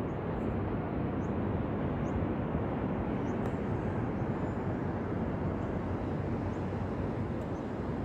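Ocean surf on a beach: a steady, unbroken wash of waves.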